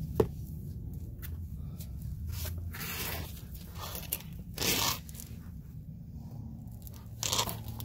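Handling noises close to the microphone: a sharp click just after the start, then three brief rustling scrapes, near the middle and near the end, over a low steady hum.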